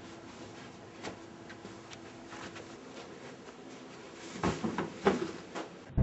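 Camera handling noise: quiet rustling of fabric with a few faint clicks, then a cluster of soft knocks and bumps about four and a half seconds in as the camera is pressed against clothing.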